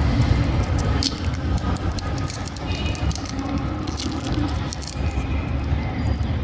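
Plastic candy packaging being handled: crinkling with scattered small clicks over a steady low rumble.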